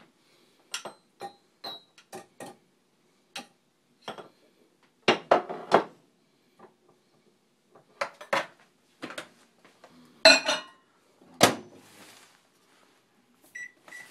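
Dishes and utensils knocking and clinking on a kitchen counter in scattered knocks, a few louder ones in the second half. Near the end, two short microwave keypad beeps.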